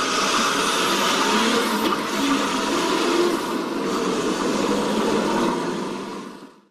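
Vehicle engine running steadily as the motorhome drives past, fading out near the end.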